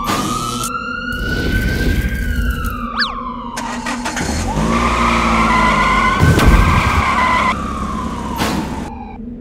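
Emergency vehicle siren wailing, rising and slowly falling twice, over a low vehicle engine rumble.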